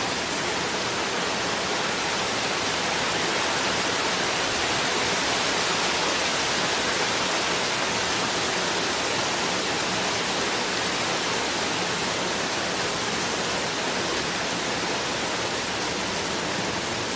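Heavy rain in a steady downpour, an even hiss.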